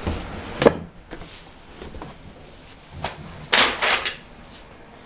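Scattered knocks and clunks of handling and movement, with no engine running. There is a sharp knock about half a second in, a few lighter taps, and a louder cluster of clunks around three and a half to four seconds in.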